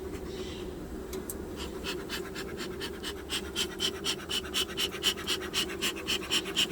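Honeybees from an open hive humming steadily. Over the hum, a quick rhythmic rasping at about four strokes a second starts a second or two in and grows louder.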